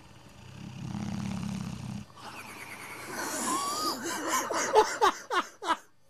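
English Bullmastiff snoring in his sleep: a low rumbling snore for about two seconds, then a longer, hissing breath that breaks into a run of rapid flaps from his loose jowls, ending in a few sharp flaps.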